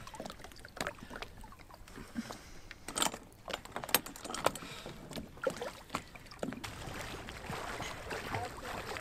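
Scattered light knocks and clinks as a wetsuited swimmer climbs up a sailboat's side past its rail and lifelines, over a low steady hiss. Faint voices come in near the end.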